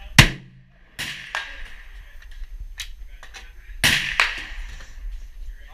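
Gunshots at a shooting range: a loud shot just after the start, two more about a second in, and a close pair near four seconds, with fainter shots in between, each ringing briefly after the crack.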